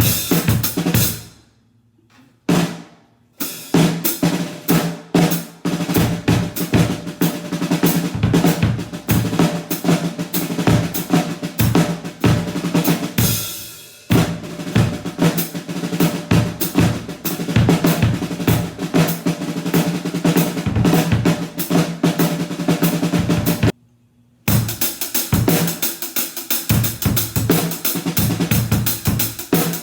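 Acoustic drum kit played in grooves and fills: kick drum, snare and cymbals, heard as the raw room sound with no close mics or processing. It breaks off briefly twice, and at one point a hit rings out and fades before the playing resumes.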